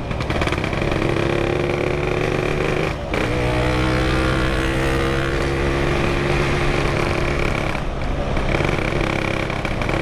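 Yamaha RX-King's 135 cc two-stroke single-cylinder engine running under way. The engine sound dips briefly twice, about three and about eight seconds in, and its pitch climbs slowly between the dips.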